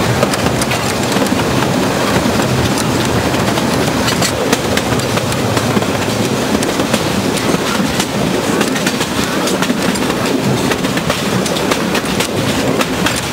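Narrow-gauge train running, heard from an open-sided passenger car: steady rumble of wheels on rail with frequent clicks and clatter over the track.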